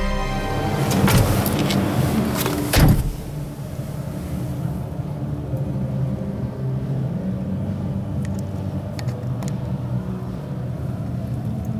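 The cab door of a DFSK K02S mini truck shutting with one sharp, loud thud about three seconds in, after some handling noise, followed by a steady low rumble.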